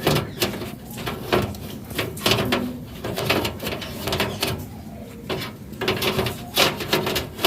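Indian ringneck (rose-ringed) parakeet making low chattering, cooing calls between its talking, mixed with a string of short sharp clicks and rattles.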